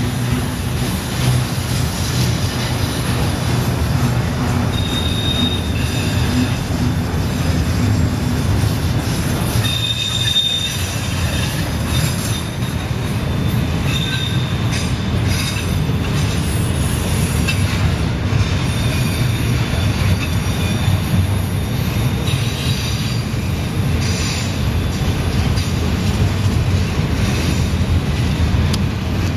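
Freight train of autorack cars rolling past close by: a steady, loud rumble of wheels on rail. Brief high wheel squeals come through a few times as the flanges grind on the sharp curve.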